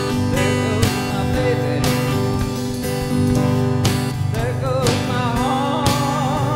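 Live band playing an instrumental passage: acoustic guitar strumming, electric guitar and a drum kit keeping a beat about once a second. About four and a half seconds in, a melody line with a wavering vibrato comes in over the chords.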